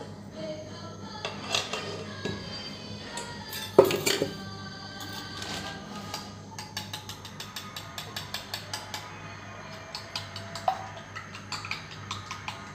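An egg being beaten with a utensil in a small glass bowl: a fast, even run of light clinks, about five a second, through the second half. About four seconds in there is one loud clank of steel kitchenware being handled.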